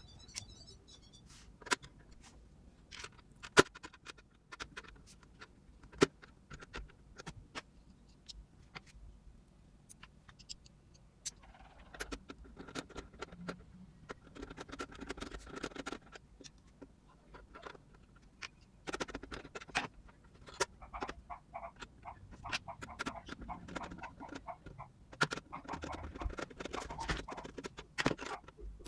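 Workshop handling of a steel tool box and its parts: scattered sharp clicks and knocks, becoming a busier clatter and scrape for a few seconds about twelve seconds in and again for most of the last ten seconds.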